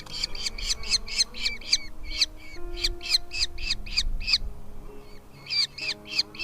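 Nestling birds making begging calls at a feeding: a rapid series of short, sharp calls, about four a second, breaking off about four and a half seconds in and resuming briefly near the end. Soft background music with held notes underneath.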